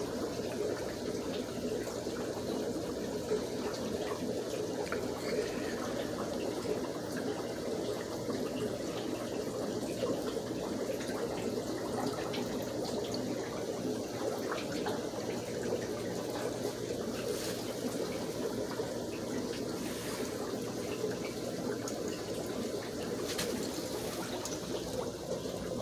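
Aquarium filtration water trickling steadily, with a few faint ticks.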